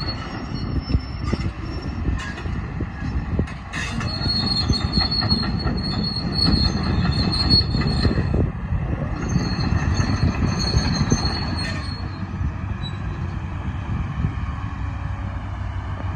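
Liebherr R946 long-reach excavator running, its diesel engine a steady low rumble. A high-pitched metallic squeal rides over it in two stretches, from about four to eight seconds in and again from about nine to twelve seconds.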